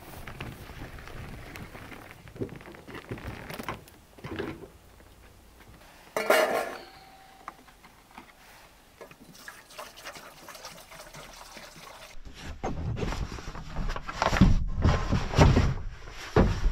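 A few clicks and knocks, then water poured from a plastic jug into a steel dog bowl, loudest about six seconds in. From about twelve seconds in come heavy low thumps and handling noise.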